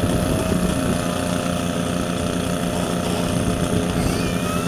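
Portable fire pump's engine running steadily at a constant pitch, pumping water into the laid-out hose lines during a wet attack.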